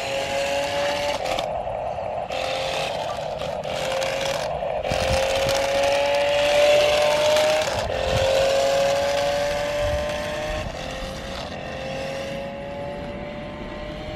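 Small electric motor of the Force One Shark Rider remote-control toy whining as it drives, its pitch creeping up and dropping back several times as it speeds up again and again. Gritty rolling and scraping noise from the wheels on concrete comes and goes over it.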